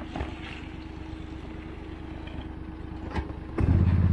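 Small utility vehicle's engine running steadily, then revving hard about three and a half seconds in as it strains to pull free of deep mud.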